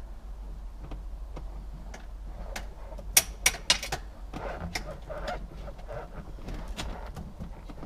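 Hand work on car dashboard and firewall parts: scattered light clicks and knocks of parts and tools being handled, with three sharp, louder clicks about three seconds in.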